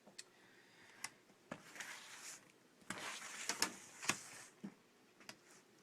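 Adhesive tape being pressed back over the laptop screen's cable connector: scattered small clicks with two stretches of crackly rustling, the second one, about three seconds in, the louder.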